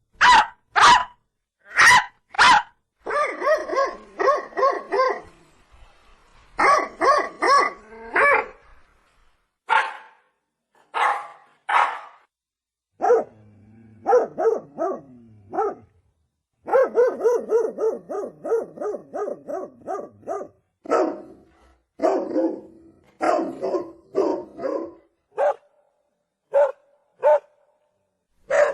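A dog barking over and over: a few single loud barks at first, then quick runs of barks with short pauses between them.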